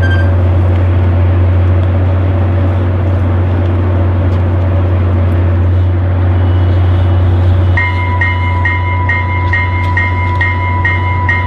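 A FrontRunner commuter train idles at the platform with a steady low drone. About eight seconds in, an electronic locomotive bell starts ringing in even, pitched strokes about twice a second, the warning that the train is about to depart.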